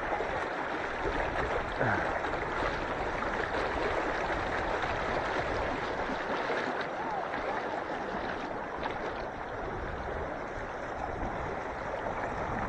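Running water from a small inlet creek: a steady rushing hiss.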